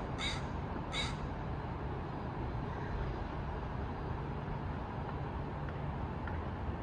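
A crow cawing twice, about a second apart, over a steady low rumble of distant city traffic.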